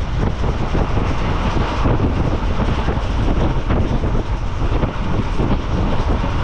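DEMU train running, a loud steady rumble with heavy wind buffeting the microphone.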